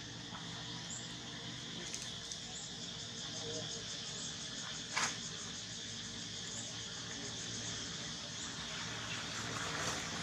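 Steady outdoor insect chorus, a high drone, with one brief sharp click or knock about five seconds in.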